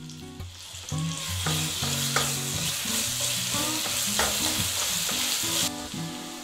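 Chopped garlic frying in melted butter in a pan, sizzling steadily while a spatula stirs and scrapes it around the pan, with a few sharp clicks from the spatula. The sizzle drops off sharply about five and a half seconds in.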